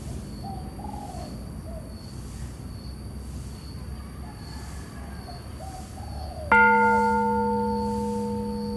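A temple bell struck once, about two-thirds of the way in, then ringing on with a slow fade. Under it runs a low steady rumble, with a faint high tone pulsing about twice a second.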